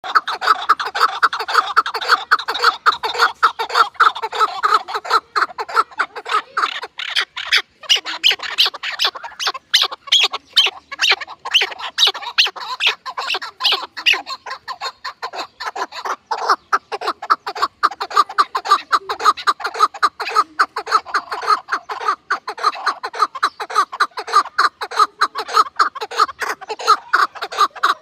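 A dense flock of birds calling all at once: a continuous chatter of quick, overlapping calls with no pause.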